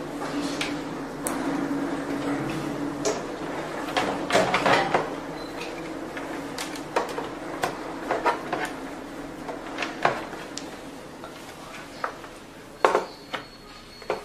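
Parts of a facial oxygenation machine being handled and fitted together: a series of sharp clicks and knocks, with a low steady hum for the first few seconds.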